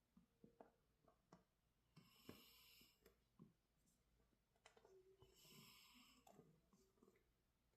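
A sleeping cat snoring softly: two long, hissy breaths about three seconds apart, with faint clicks in between.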